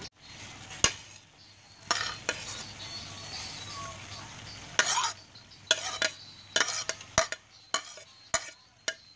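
Metal spoon scraping chopped spring onions off a ceramic plate into a frying pan and stirring them into the vegetables. Irregular scrapes and a few sharp clinks of spoon on plate and pan sound over a faint sizzle.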